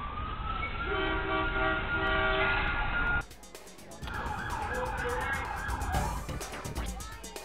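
Siren sound effect over a low rumble: a wail rising in pitch, then holding a steady note. It cuts off about three seconds in, giving way to a noisier background, and music with a regular beat comes in near the end.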